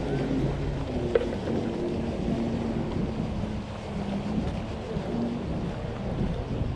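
Wind rumbling on the microphone of a moving camera: a steady low rumble, with a single sharp click about a second in.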